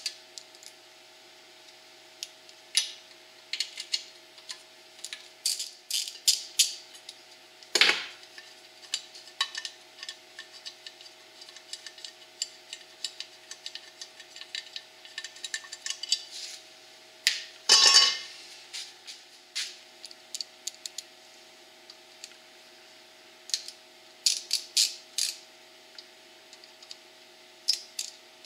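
Metal clicks and clinks from hand work on a small engine: valve cover bolts being backed out with a hand driver and the valve cover of a Briggs & Stratton OHV engine coming off. Two louder metal clatters stand out, about a quarter of the way in and a little past halfway.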